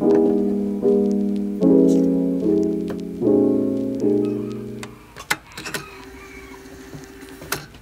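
Lo-fi piano background music, soft chords struck about every 0.8 seconds, fading out about five seconds in. A few faint clicks follow in the quieter stretch.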